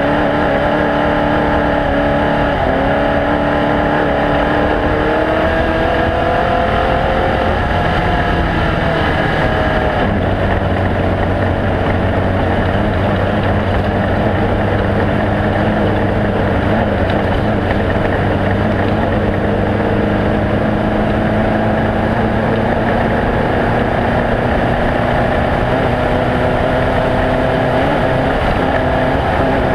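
Off-road race vehicle engines running loud and steady, their pitch slowly rising and falling; the engine note changes about ten seconds in.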